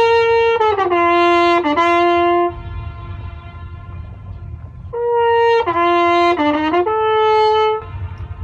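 Flugelhorn playing two short phrases, each opening on a held note and then stepping down through several notes. In the pause between them, faint echoes of the notes come back off the steep rock walls over a low background rumble.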